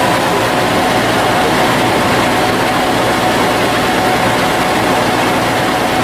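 Combine harvester running steadily while its unloading auger pours threshed rice grain from the spout, a dense, unbroken rushing noise with a faint steady whine.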